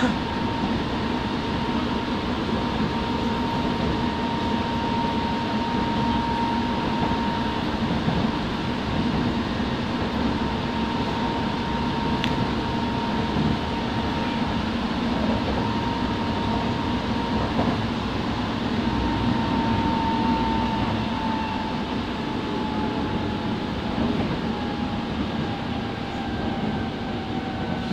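Kobe Municipal Subway Series 1000 train running, heard from inside the car: steady rumble and rail noise under a clear motor whine. In the last third the whine drops in pitch as the train begins to slow.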